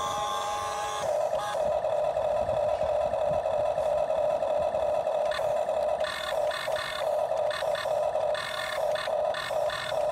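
Small electric motor of a model RC excavator whining at a steady pitch. In the second half the whine cuts in and out in short irregular pulses.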